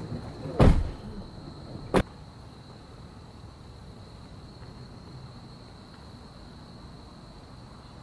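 A car door shuts with a heavy thud, and about a second and a half later comes a shorter, sharper knock. Crickets keep up a steady high trill behind it.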